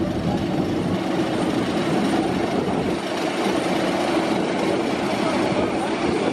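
Steady jet aircraft noise on the airport apron: a continuous mechanical drone with a faint high whine over it.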